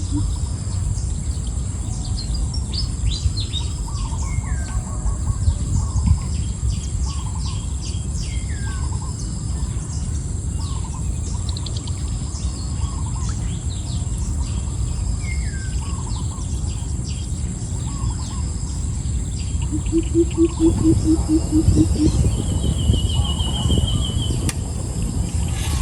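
Several wild birds calling with repeated short chirps and falling whistles, over a steady high insect drone. About twenty seconds in a low, rapidly pulsed call sounds, followed by a short high trill.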